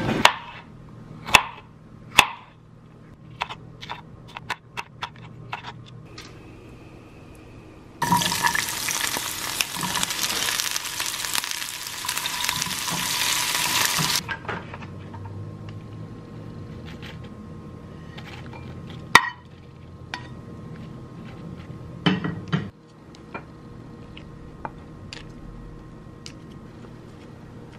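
A run of grocery and kitchen handling sounds. It opens with scattered knocks as packages go into a shopping cart. From about eight seconds in, sliced peppers and mushrooms sizzle loudly in a frying pan for some six seconds, then stop suddenly. Quieter clinks and knocks of utensils, a bowl and a jar follow.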